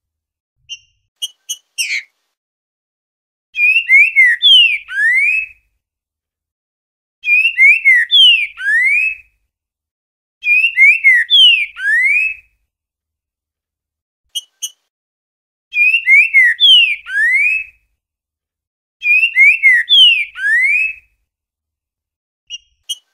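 Green-winged saltator (trinca-ferro) singing the 'boiadeiro' song type: five loud whistled phrases of about two seconds each, a few slurred notes ending in a rising note. The phrases are separated by pauses broken by short, sharp call notes.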